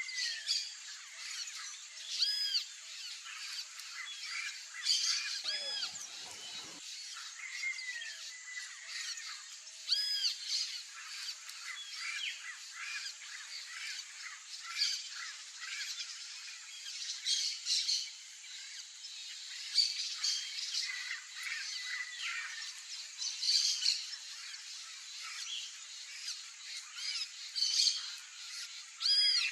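Turquoise-fronted parrots (Amazona aestiva) calling: short, harsh arched squawks, repeated every few seconds, over a steady high-pitched background hiss.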